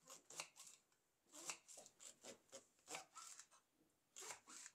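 Faint, short rustles and scrapes in quick irregular succession, about a dozen of them: kindling and paper being handled while a fireplace is laid and lit.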